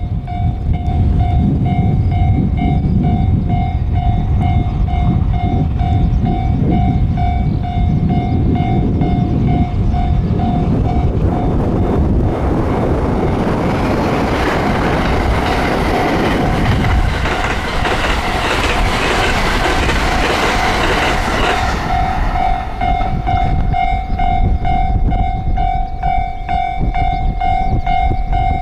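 Japanese level-crossing warning bell ringing in an even, repeating ding. A train rumbles up and passes the crossing, its rushing noise loudest in the middle and drowning the bell for about ten seconds before the bell comes through clearly again.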